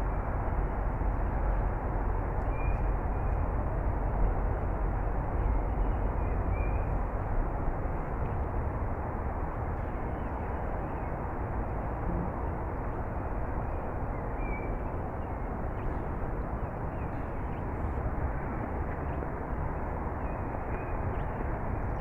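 Steady, rumbling outdoor background noise, with a few faint short bird calls about three seconds in, near seven seconds and near fifteen seconds.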